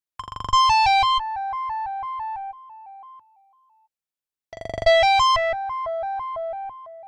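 Phone ringtone: a short electronic-keyboard melody of quick alternating notes that starts loud and fades, played twice a little over four seconds apart.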